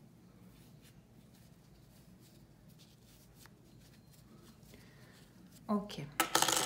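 Soft, faint rustling and scratching of fingers pushing fibre stuffing into a small crocheted piece and handling the yarn.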